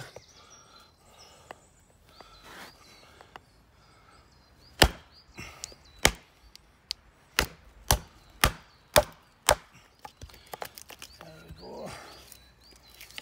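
A wooden baton striking the spine of a 1075 carbon steel bushcraft knife, about eight sharp knocks a little under two a second starting about five seconds in, driving the blade through a piece of wood with two knots in it.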